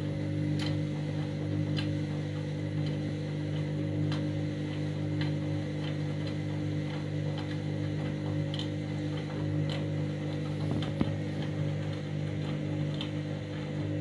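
Front-loading washing machine in the main wash of a full-load cottons 40 cycle: the drum motor hums steadily as the wet laundry tumbles, with scattered sharp clicks every second or so.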